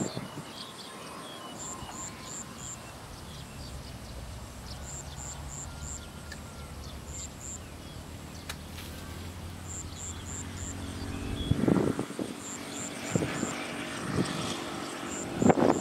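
Motorbike engine droning steadily, dying away about twelve seconds in, while high chirps come in quick sets of four every couple of seconds. Two short, loud noisy bursts stand out near the end.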